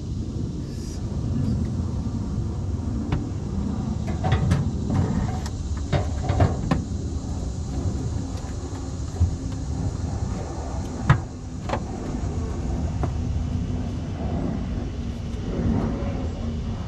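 A low rumbling noise with a handful of sharp knocks and clanks, the loudest about eleven seconds in.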